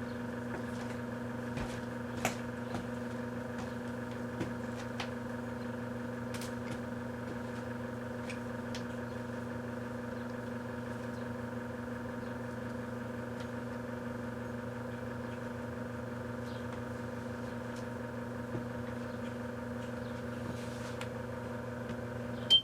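1984 Kenmore microwave oven running with a steady hum, with faint scattered clicks and crackles over it. It cuts off with a sharp click near the end.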